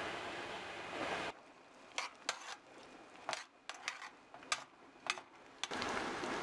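Steady hiss of a gas stove burner, then a pan of fava beans simmering, with scattered sharp pops of bursting bubbles for about four seconds. The steady hiss comes back near the end.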